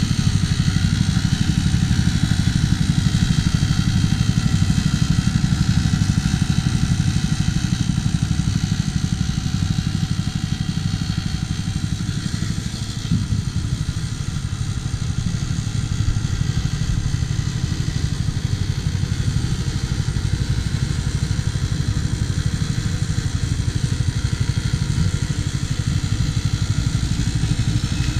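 Small petrol engine of a walk-behind lawn mower running steadily under load while mowing, with a brief dip in level about halfway through.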